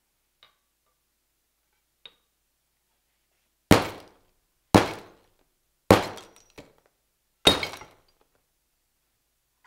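Four loud crashes of steel nails, sockets and hand tools dropped onto a smartphone lying in a heap of tools, each followed by a short metallic rattle as the pieces settle. Two faint ticks come before them.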